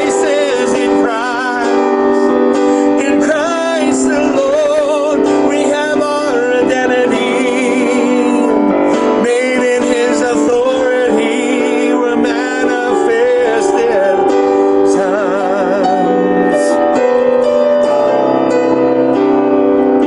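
A man singing a worship song with vibrato over sustained keyboard chords; the voice drops out near the end, leaving the keyboard playing.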